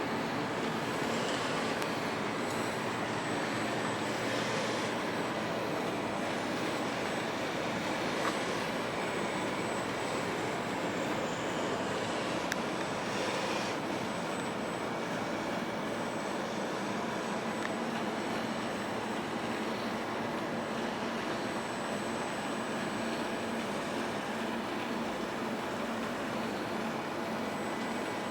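CHUWI ILIFE V7S robot vacuum cleaner running steadily, its suction fan and brushes whirring, with a faint high-pitched whine.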